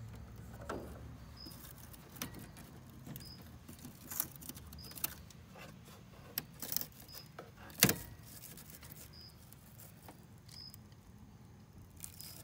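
Scattered clicks, rattles and crackles of wires and charred control-board material being handled inside a gas pack unit, with one sharp snap about eight seconds in. The board has shorted and burnt.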